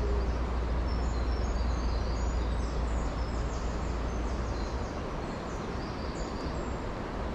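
Steady rush of water pouring over a river weir, with small birds chirping in short high notes above it. A low rumble under the water noise drops away about five seconds in.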